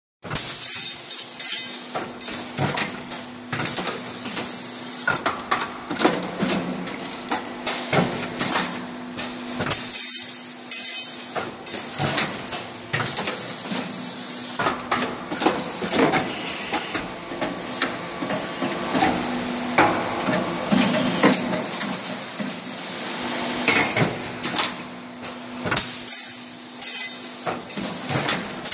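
Automated headrest-rod transfer line running: irregular metallic knocks and clanks of steel rods and tooling moving through the stations, with repeated bursts of air hiss from the pneumatic cylinders over a steady machine hum.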